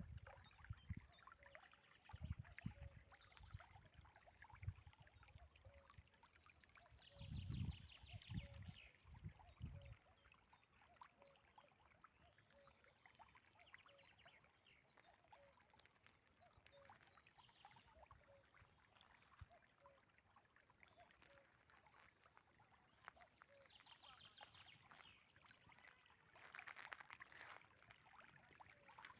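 Faint riverside ambience: scattered birds chirping, and a soft low call repeating about every three-quarters of a second. A few dull low thumps come in the first ten seconds.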